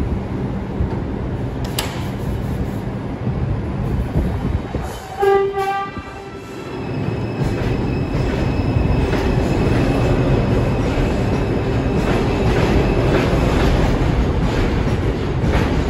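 R142-series subway train at a platform: a steady low hum, then two short horn toots about five seconds in, after which the train pulls out, running louder with a steady electric whine and wheels clacking over rail joints.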